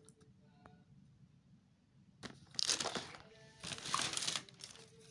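Plastic shopping bag crinkling in two noisy bursts, about two and a half and four seconds in, as hands rummage through it for packaged toys.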